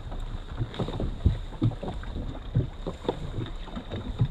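Wind on the microphone and irregular low knocks and slaps of water against a fishing boat's hull, with a faint steady high whine.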